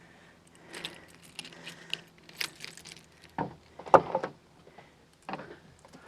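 A bunch of keys jingling and clicking as they are handled, with a sharper knock about four seconds in.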